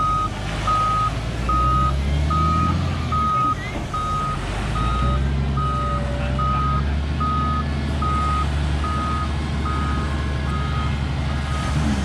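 Volvo wheel loader backing up: its reversing alarm beeps steadily, a little faster than once a second, over its diesel engine, which picks up twice under load as it hauls the boat-launch cage out of the water.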